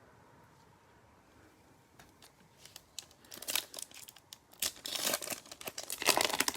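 Foil trading-card pack wrapper crinkling and being torn open by hand. It starts about two seconds in and grows louder and denser toward the end.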